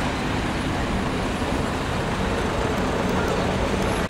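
Steady engine and road rumble heard from inside a bus, with traffic noise outside.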